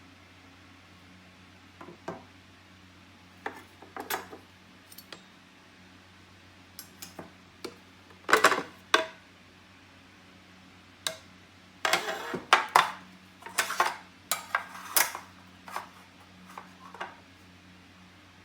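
Irregular clinks, knocks and clatters of hard kitchenware such as metal espresso parts and a cup being handled, with the busiest run in the second half, over a steady low hum.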